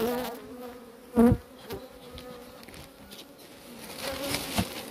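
Honey bees buzzing around an open hive, with a close, wavering wingbeat hum at the start that fades away. A loud thump about a second in, and a lighter knock near the end.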